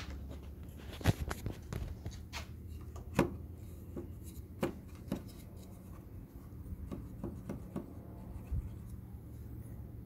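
Scattered light taps and knocks at an irregular pace over a steady low hum, the sharpest about a second in and again about three seconds in.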